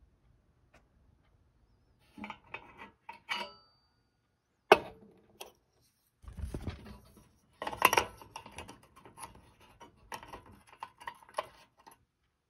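Metal clinks and clatter as the burner cap and cast-iron pot support of a SVEA No.100 brass pressure stove are handled, with one sharp knock about five seconds in.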